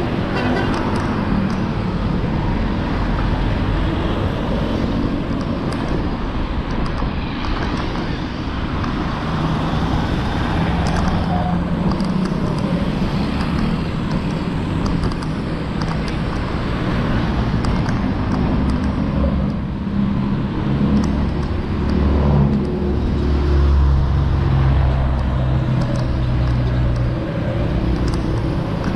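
Road traffic with wind noise on the microphone while riding along a road: a continuous rumble of passing engines and tyres. A heavier, deeper engine rumble swells about two-thirds of the way through.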